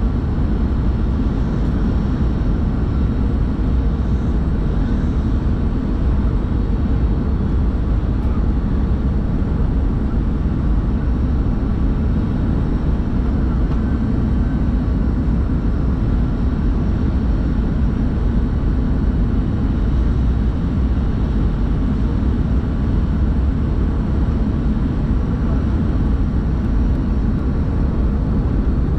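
Steady cabin noise of an Airbus A320 in flight: the engines and the rush of air, strongest at the low end with a faint steady hum above it, even throughout.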